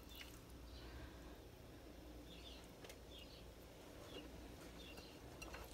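Near silence: quiet room tone with a low steady hum and a few faint, brief high-pitched sounds.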